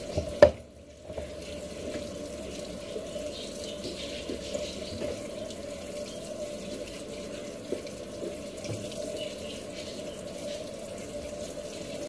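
Top-loading washing machine filling: water streams steadily from the inlet and splashes into the tub. A sharp click comes about half a second in, followed by a brief lull before the water noise carries on.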